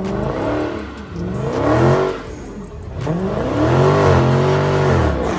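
Car engine revving hard, its pitch swinging up and down several times in repeated swells, with the longest rev near the end.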